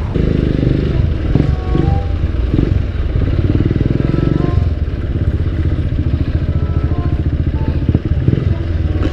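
Cruiser motorcycle engine pulling away from a stop and running through slow traffic, a dense low pulsing that gets louder right at the start as the throttle opens.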